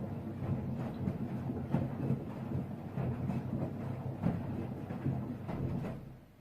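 Miele washing machine running, the drum turning with a steady motor hum and irregular soft knocks of laundry tumbling, then stopping about six seconds in.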